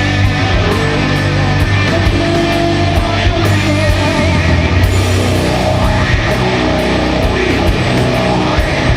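Doom metal band playing a slow, heavy passage: distorted guitars and bass hold long low notes under regular drum and cymbal hits.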